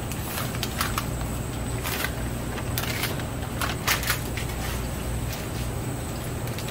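Large stockpot of water at a rolling boil on high heat as dry spaghetti goes in: a steady low rumble with scattered crackles and clicks, the loudest a few about four seconds in.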